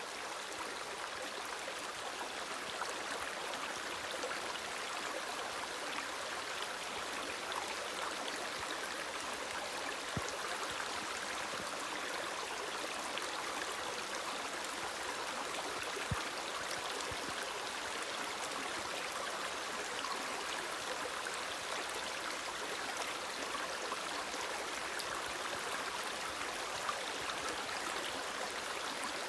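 Shallow rocky creek flowing steadily over stones: a soft, even rush of water, with a few scattered faint ticks.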